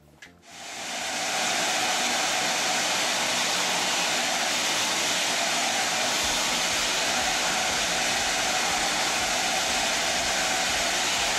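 Vacuum cleaner switched on about half a second in, spinning up to a steady loud rush of air. It is drawing loose static grass fibres up through a hose with a brush nozzle, leaving only the glued grass standing.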